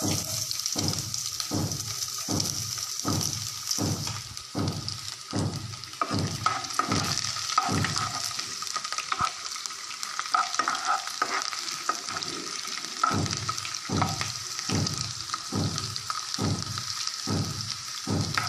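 Sliced garlic sizzling in hot oil in a nonstick kadai, fried until its raw smell goes. The sizzle starts at once as the garlic goes in, and a spatula scrapes and stirs through it about twice a second.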